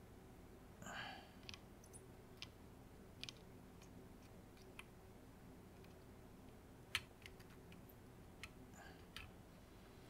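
Near silence with faint, scattered small clicks and taps of metal hand tools, tweezers and a soldering iron tip, against a small circuit board while solder is added to the switch pads. The sharpest tick comes about seven seconds in.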